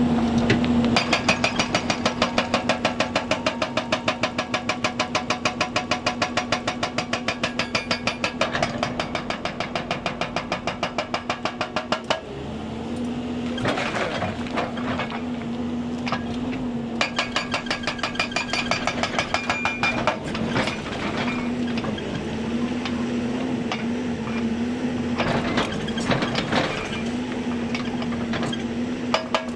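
Hyundai 290 excavator's hydraulic breaker hammering in a rapid, even rhythm over the steady drone of its diesel engine. The hammering stops about twelve seconds in, leaving the engine running alone, then comes back for a few seconds later on.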